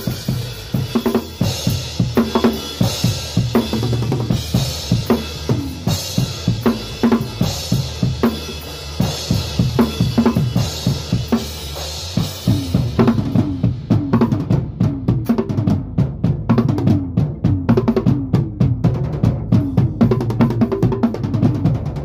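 A band jamming: a drum kit played close to the microphone, bass drum and snare driving a steady beat with cymbals crashing, over a sustained electric guitar. About thirteen seconds in the cymbals drop out, leaving drums and guitar, and the band stops abruptly at the very end.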